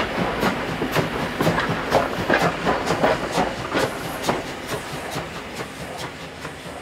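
The 1943 Henschel-built Class 52 steam locomotive 52 8053 running past with its train, with a regular beat about twice a second. It fades steadily as the train draws away over the last few seconds.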